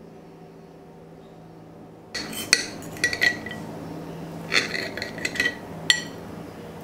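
Fork and knife cutting through soft pancakes, scraping and clinking against a ceramic plate several times in quick, uneven strokes, starting about two seconds in.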